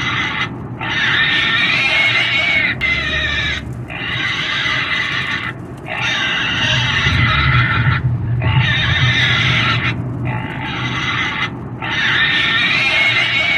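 Pig squealing: about six long, high-pitched squeals, one after another, with short breaks between them every one to two seconds.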